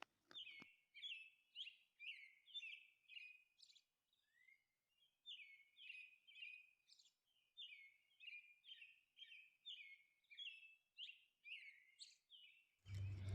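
Faint bird-like chirping: short high notes about two a second, broken by a pause about four seconds in.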